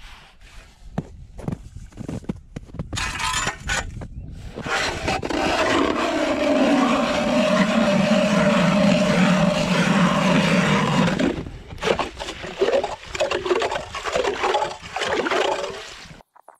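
Ice auger boring through thick lake ice: scraping at first, then several seconds of continuous loud grinding and churning as the blades break through and water and slush come up the hole, then scattered scrapes and knocks of ice shards.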